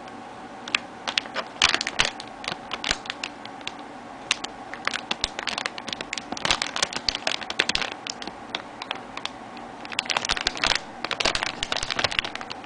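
Plastic model-kit runners and their packaging being handled: irregular light plastic clicks and crinkles coming in three spells.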